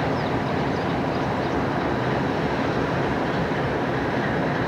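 Diesel locomotive running as it moves along the track with freight cars, a steady engine drone mixed with rail and wheel rumble.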